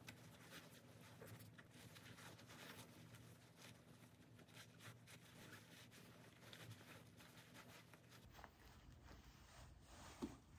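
Faint rustling of coat fabric as a trench coat's fabric belt is pulled and tied, with one small tap near the end, over a faint steady low hum.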